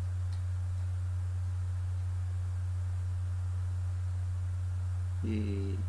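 A steady low hum, a single unchanging tone, with a brief voice near the end.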